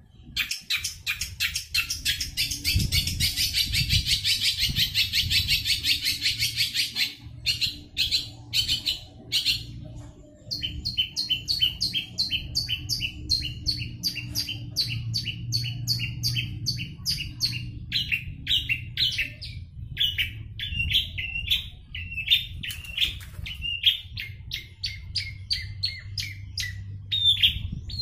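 Cendet (long-tailed shrike) singing nonstop in a fast rolling song. It opens with a dense, very rapid run of high notes, then settles into quick repeated notes and, in the later part, more varied phrases that slide up and down. A steady low hum runs underneath.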